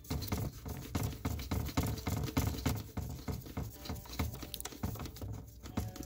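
Rapid, irregular scratching and tapping of a nitrile-gloved hand fumbling against plastic trim and carpet around a seat belt retractor, close to the microphone.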